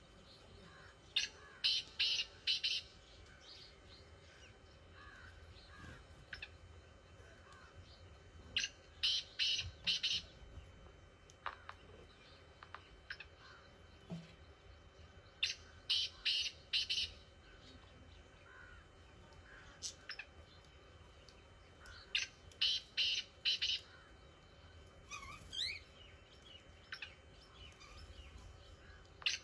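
Black francolin calling: a quick phrase of four or five loud notes, repeated about every seven seconds, four times. Faint chirps between the phrases.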